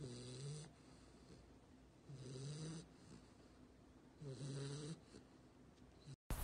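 A dog snoring in its sleep: three short, evenly spaced snores about two seconds apart.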